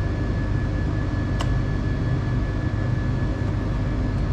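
Steady low hum of a free-piston Stirling engine test rig running under load, mixed with lab ventilation, with a faint steady high whine and a single click about a second and a half in.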